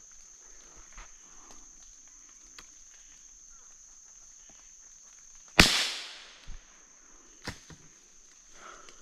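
A single loud gunshot about halfway through, followed by two lighter knocks about one and two seconds later, over a steady high-pitched insect buzz.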